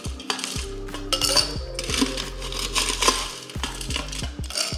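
Ice cubes clattering and clinking against a stainless steel ice bucket and a glass as ice is scooped into a highball glass: many irregular, sharp clicks.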